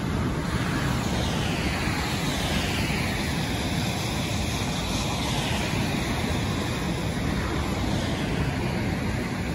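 Steady rushing noise of rough surf breaking on a stormy sea, over a deep constant rumble.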